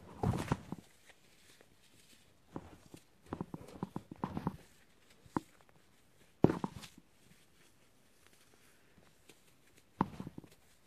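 Hands crushing and stirring crumbled dry floral foam: soft crunching and crackling in short bursts with quiet gaps between, and a single sharp knock, the loudest sound, about six and a half seconds in.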